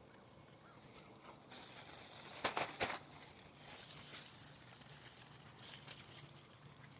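Leaves and canes of a blackberry bush rustling as berries are picked by hand, with a quick run of sharp crackles about two and a half seconds in.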